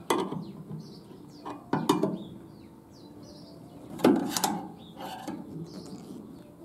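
Screwdriver clinking against a steel turnbuckle as it is levered round to tighten a camper tie-down. Four or so separate metal clicks and clanks, the loudest about four seconds in.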